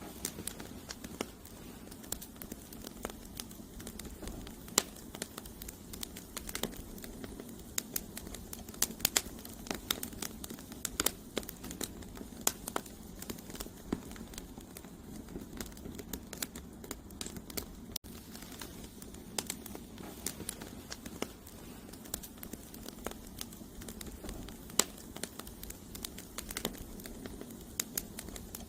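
Campfire of burning firewood crackling, with frequent irregular sharp pops and snaps over a steady low rush of flame.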